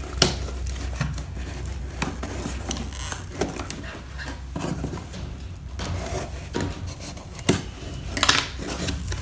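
A cardboard shipping box being opened by hand: scattered sharp knocks and clicks of the cardboard and its flaps, with light rustling and scraping of the packaging, and a cluster of knocks near the end.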